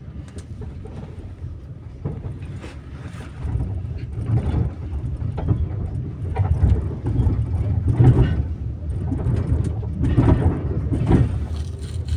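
Tram running along street track, heard from inside the car: a low rumble of motors and wheels that grows louder as it gets under way, with a series of short knocks from the wheels on the rails.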